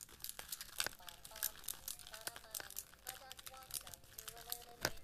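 Nintendo Switch buttons clicking rapidly and irregularly, over faint electronic game tones that step up and down in pitch.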